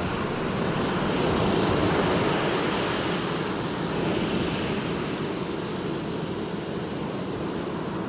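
Ocean surf breaking on a sandy beach: a steady wash of waves and foam that swells and eases gently.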